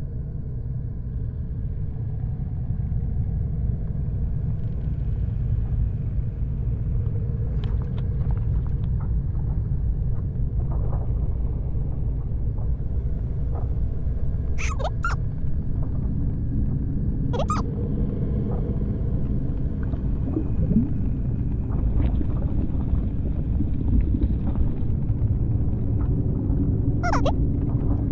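Deep, steady rumbling drone. Four brief sharp high sounds cut through it: two close together about halfway, another a couple of seconds later, and one near the end.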